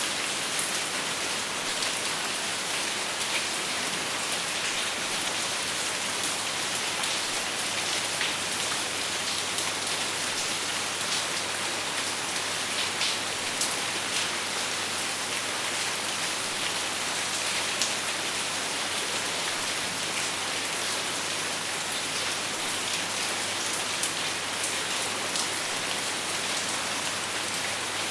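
Steady rain with no thunder: an even hiss of rainfall with many small drops ticking on a surface.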